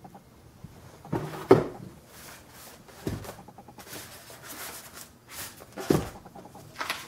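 Packaging of a boxed scale model being handled, with several sudden rustling knocks, the loudest about a second and a half in and another near six seconds. A bird calls softly in the background.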